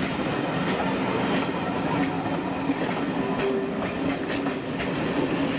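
Steam-hauled heritage train passing over a level crossing, its carriage wheels clattering steadily over the rails with scattered sharp clicks.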